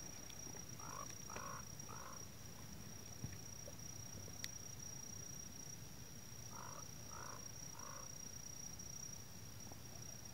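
An animal, most likely a bird, calls three times in quick succession, and then three times again about five seconds later, over a steady high-pitched whine and a low rumble.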